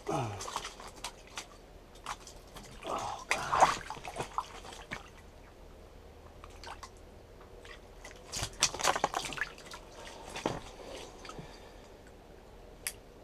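Scattered wet, slimy handling noises with light clicks and knocks as a burbot is moved about on the shack floor, in a couple of bursts about three and nine seconds in.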